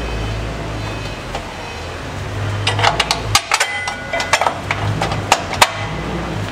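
Steel bolts clinking against a truck's steel mounting bracket as they are fitted by hand. About halfway in comes a cluster of about a dozen sharp, irregular metallic clicks and taps, one ringing briefly, over a steady low hum.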